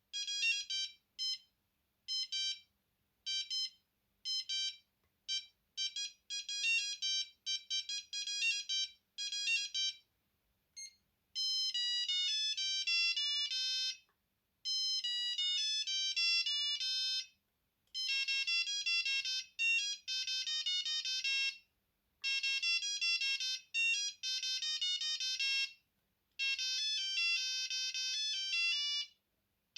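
Alcatel One Touch Easy mobile phone playing its built-in ringtone melodies one after another. For the first ten seconds they are short runs of quick beeps with gaps between; after that come longer melodies of a few seconds each, each stopping abruptly and a new one starting about half a second later.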